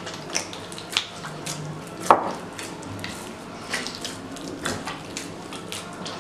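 Hand mixing and gathering moist pizza dough in a bowl: irregular wet squelches and slaps with scattered clicks, and one sharper knock against the bowl about two seconds in that rings briefly.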